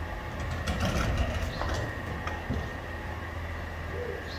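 A garbage truck engine idles with a steady low rumble while a full steel front-load dumpster is rolled on its casters, giving a run of knocks and rattles about one to two and a half seconds in.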